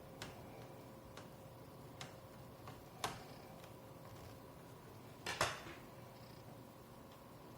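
Small hard clicks and taps of handling laptop parts and screws while fitting an SSD into a laptop, with a louder double knock a little past halfway, over a faint steady hum.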